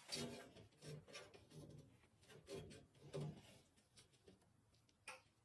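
Near silence broken by faint scattered clicks and light taps of small parts and tools being handled.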